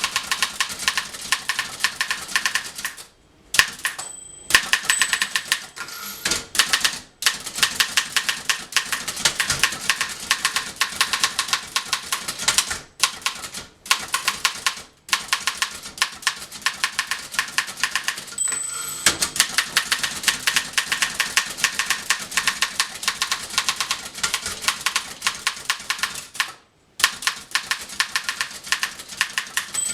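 1911 Continental Standard manual typewriter being typed on at a brisk, steady pace: rapid key and typebar strikes several a second, broken by a few short pauses. A short, high bell ding sounds twice, about four seconds in and again around nineteen seconds.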